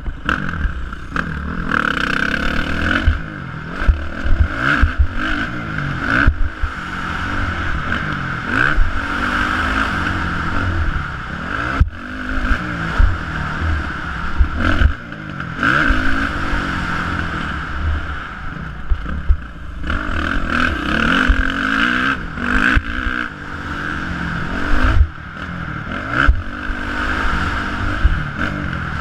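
Dirt bike engine revving hard and falling back again and again as it is ridden around a motocross track, heard from the rider's helmet with wind rushing over the microphone. Sharp knocks and clatter come as the bike hits bumps.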